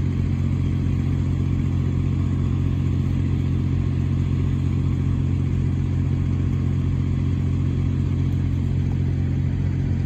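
Steady, unchanging low drone of an idling engine.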